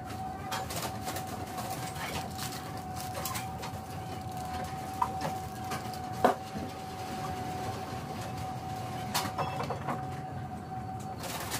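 Hospital dialysis unit room sound: a faint steady tone under a low background noise, with scattered clicks and knocks of equipment being handled, the sharpest about six seconds in.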